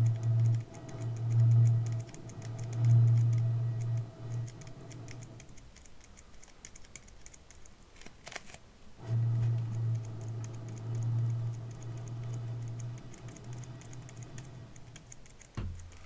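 Empty plastic bottle being handled and tapped: a fast, regular light ticking runs through, with stretches of low thrumming from the plastic. There is a sharp click about eight seconds in and another near the end.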